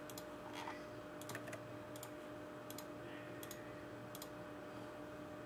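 Computer mouse clicking, a faint click every half second or so that stops a little over four seconds in, over a faint steady hum.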